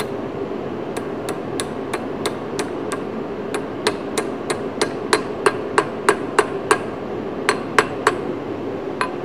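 Light ball-peen hammer taps on steel, about three a second, driving a snug-fitting gear onto the nose of an air-cooled VW 1600 crankshaft. The taps begin about a second in, grow harder after a few seconds, and pause briefly near the end.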